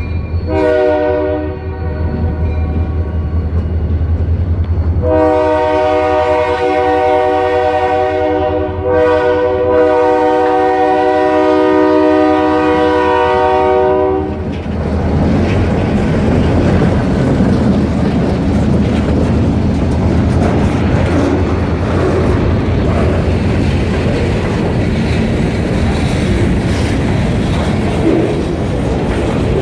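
Diesel locomotive horn of a Kiamichi Railroad EMD SD40-2 sounding a chord: a blast about a second in, then a long blast from about five seconds, broken briefly near nine seconds and held until about fourteen seconds, over a low diesel engine rumble. The horn then stops and the train rolls past with a steady roar and clickety-clack of wheels on rail joints.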